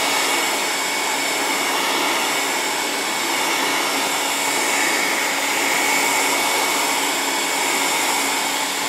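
Handheld heat gun blowing hot air steadily onto heat-shrink tubing to shrink it onto a bicycle seatpost: an even rush of fan noise with a thin high whine.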